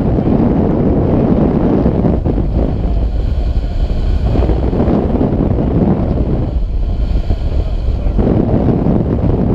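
Wind rushing over the microphone of a camera mounted on a hang glider in flight: a loud, steady low rumble that swells and eases.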